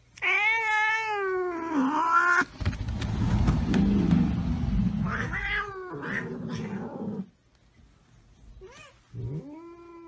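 Cat yowling: one long wavering call, then a stretch of rough rumbling noise, several shorter yowls, and another yowl starting near the end.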